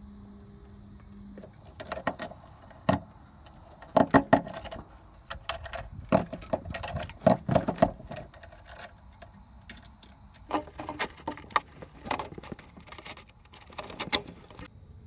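Irregular metallic clinks, knocks and rattles of parts and hand tools being handled while a diesel air heater is fitted over its mounting plate, coming in two busy spells with a short lull between.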